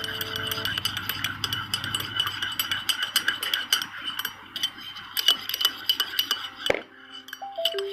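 Teaspoon stirring a honey-and-lime herbal drink in a cup, clinking rapidly and continuously against its side, with one sharper knock near the end.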